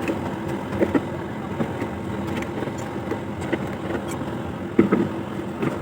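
A steady engine or motor hum with a few scattered knocks, the loudest about five seconds in.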